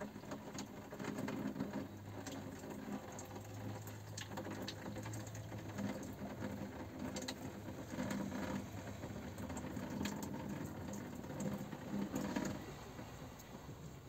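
Water running as something is rinsed and rubbed by hand at a small sink, with light clinks and taps throughout. A low steady hum sounds from about one second in to about six seconds in.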